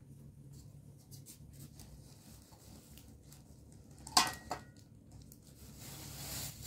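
Metal pots and bowls clinking as they are handled in a plastic bag, with one sharp clatter that rings briefly about four seconds in and a softer knock just after. A rustle builds near the end.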